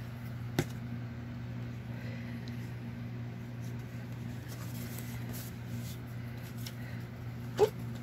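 Faint rustling of torn old book-page paper strips being handled and laid on a journal page, over a steady low hum. A sharp click comes about half a second in, and a brief, louder squeak that rises in pitch comes near the end.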